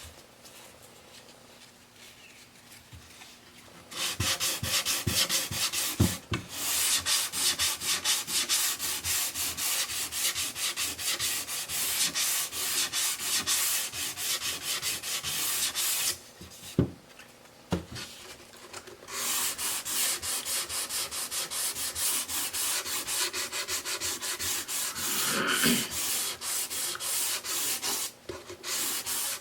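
Sandpaper rubbed back and forth on wood in quick even strokes, several a second, in two long spells separated by a short pause with a few knocks.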